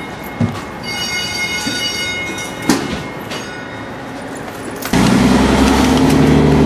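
Fire engine's diesel engine running, with a steady high whine and a couple of sharp knocks as gear and doors are handled. About five seconds in the sound turns suddenly much louder and deeper, a steady engine rumble heard from inside the cab.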